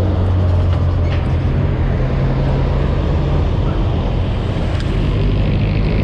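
Road traffic passing close by: a jeepney's diesel engine running with a steady low hum that eases off about halfway through, under the general noise of cars and motorcycles.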